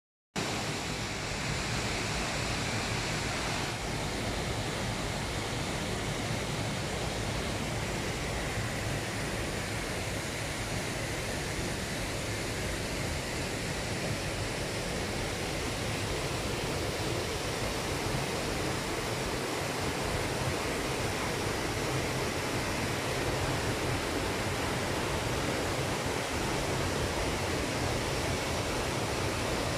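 Steady rushing of a waterfall pouring into a rocky mountain pool.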